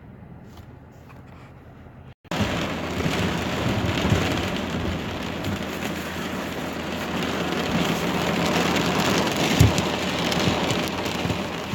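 Heavy rain pouring down in a steady, even hiss, cutting in abruptly about two seconds in after a quiet stretch.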